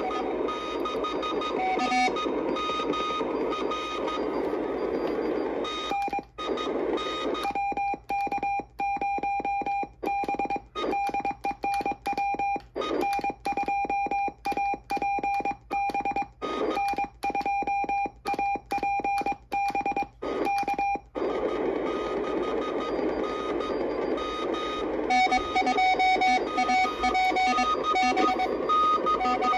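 Old Friend QRP CW transceiver's speaker giving band noise and faint incoming Morse code. About six seconds in, the noise drops out and Morse code is sent on the iambic paddle: a steady sidetone keyed on and off in dots and dashes, with the receiver silent between elements. This lasts about fifteen seconds, then the band noise and incoming Morse return.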